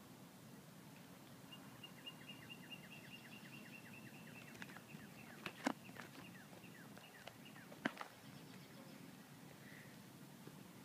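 Faint outdoor ambience with a bird chirping in a quick run of short falling notes, about four a second, over a thin steady whistle. Two sharp clicks come about two seconds apart, near the middle.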